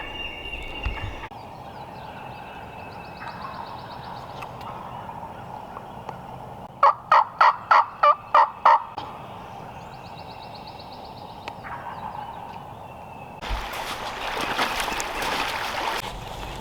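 A run of about eight loud turkey yelps, roughly four a second, about seven seconds in. Fainter rapid rattling notes come before and after it, and a burst of hissing noise starts near the end.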